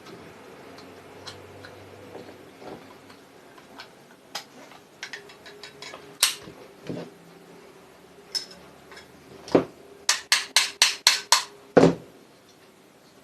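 Small metal clicks and knocks from handling and tapping parts of an electric sewing machine motor during repair, ending in a quick run of about six taps and then one heavier knock.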